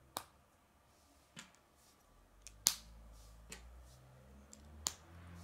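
Black K'nex plastic rods being snapped into a white K'nex snowflake connector: a run of about five sharp plastic clicks, the loudest near the middle, with a low rumble underneath from about two seconds in.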